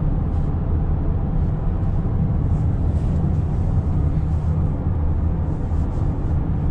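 Steady road and engine rumble inside a Honda's cabin while cruising at highway speed.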